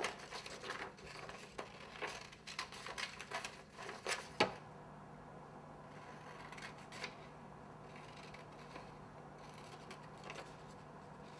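Scissors snipping through printer paper, with the paper rustling as it is handled. The snips come thick in the first four seconds or so, with one sharp snip a little over four seconds in, then grow fainter and sparser over a low steady hum.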